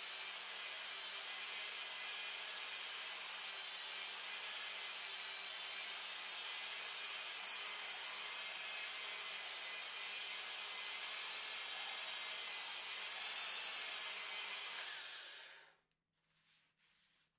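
Angle grinder with a belt-sander attachment running a sanding belt against wood: a steady motor hum under a loud hiss. It is switched off about fifteen seconds in and dies away within a second.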